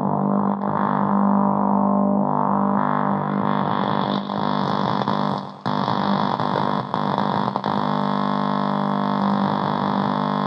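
Electronic drone from a K176LA7 CMOS NAND-gate chip (CD4011 equivalent) wired as a tone generator and run through software effects: a steady low buzz rich in overtones, its upper texture shifting, with a brief dip about five and a half seconds in.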